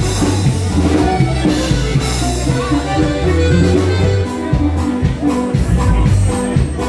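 Norteño-style Latin band music playing live for dancing, with a strong, steady bass line.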